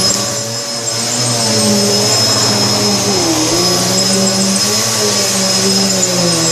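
Vacuum cleaner running steadily on carpet, a loud motor whine over a low hum, its pitch wavering slightly as the load changes. The sound dips briefly about half a second in.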